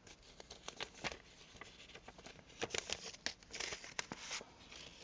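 Small objects being handled on a bench: irregular light clicks and taps mixed with brief rustling and crinkling, busiest in the second half.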